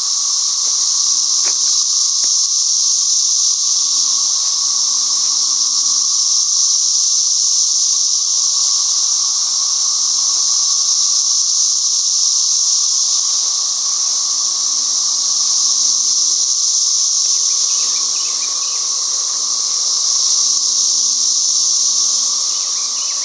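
A loud chorus of cicadas: a steady, unbroken high-pitched drone that swells and eases slightly.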